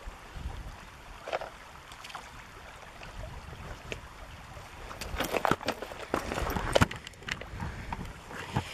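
Shallow river water sloshing and splashing, with a cluster of sharper splashes and knocks from about five to seven seconds in.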